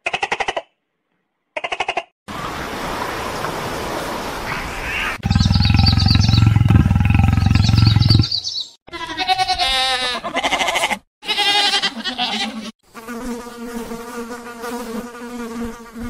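A run of separate animal sounds with short gaps between them. It opens with dolphin click trains, then a loud low growl comes in about five seconds in, then some wavering pitched calls. It ends with a beetle buzzing steadily in the last few seconds.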